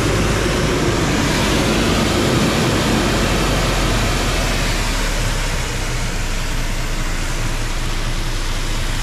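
Rosenbauer fire truck's engine-driven pump running while its roof turret shoots a water jet: a loud, steady rush of water over a low, even engine hum, easing slightly a little past halfway.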